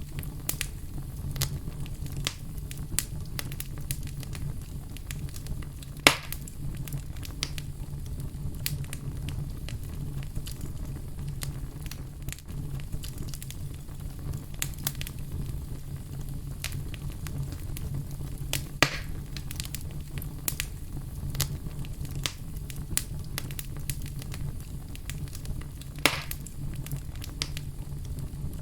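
Fireplace fire crackling with a dense, irregular run of small pops and snaps over a steady low rumble. Three louder pops stand out: about a fifth of the way in, about two-thirds through, and near the end.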